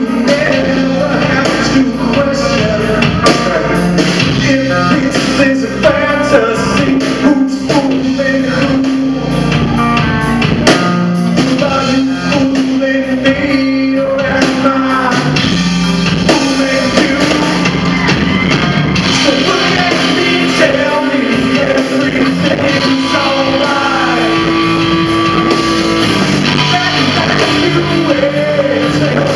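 A band playing a rock song live, with a singer over the music.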